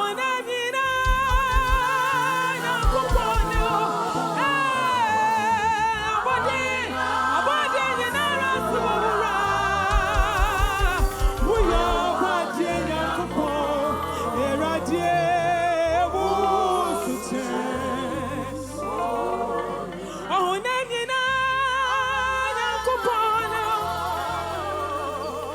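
Gospel worship music: voices singing long, wavering lines with heavy vibrato over low bass notes, with quick pulsing bass runs near the start and about halfway through.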